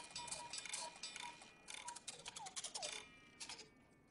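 Small cuckoo clock mechanism ticking fast and regularly, with short tinny tones among the ticks and two brief falling tones a little after two seconds; the ticking fades away after about three seconds.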